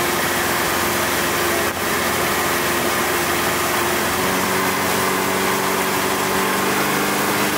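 Four-stroke outboard motor running at speed with the rush of the boat's churning wake, a steady hum under a loud even rush; a second, lower engine tone joins about halfway.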